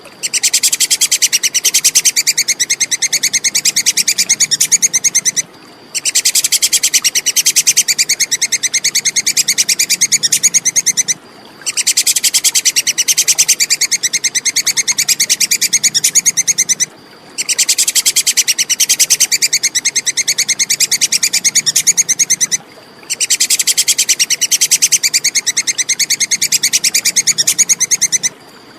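Tupai (squirrel) giving its rapid 'kekes' chattering call: dense trains of high, sharp chips in bouts of about five seconds, broken by short half-second pauses and repeated over and over in the same pattern.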